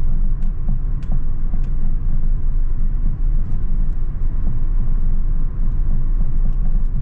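Car driving along a road, heard from inside the cabin: a steady low rumble of road and engine noise, with a few faint ticks.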